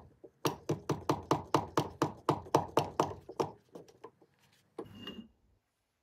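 Rapid, even hammer taps, about six a second, on the connecting rod inside the crankcase of the Mity Kat bulldozer's Hercules engine, driving a piston up out of its cylinder. The taps die away about three and a half seconds in, and a single short clink follows near five seconds.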